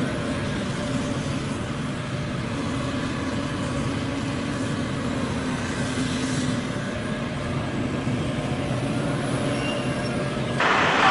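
Diesel engines of tracked hydraulic excavators running steadily under load. About ten and a half seconds in, a louder rushing noise suddenly cuts in.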